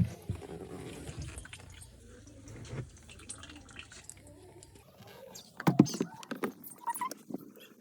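Water dripping, with scattered light taps and a louder knocking clatter about six seconds in.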